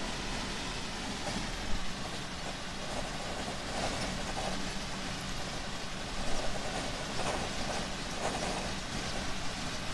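Steady engine and road noise inside a day-cab semi truck's cabin cruising at highway speed, with a short thump about two seconds in and another a little past six seconds.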